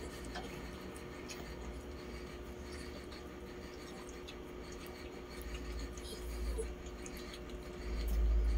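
Faint rustling and scratching of a terry towel and damp fur being handled close to a phone microphone, over a faint steady hum. A low handling rumble grows louder near the end.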